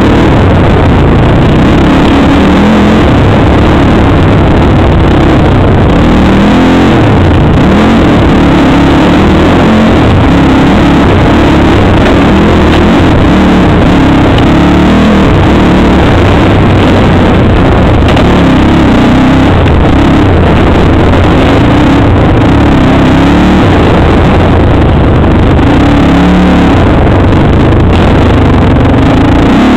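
Suzuki Z400 ATV engine, a single-cylinder four-stroke, running loud under changing throttle on a rough trail. Its pitch rises and falls as the rider works the throttle, heard from a helmet camera on the quad.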